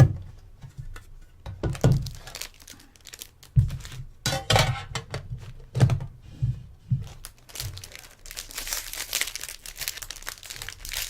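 A hockey card box and pack being opened by hand: several dull thunks as the packaging is handled, then crinkling and tearing of a thick foil card pack wrapper over the last three seconds.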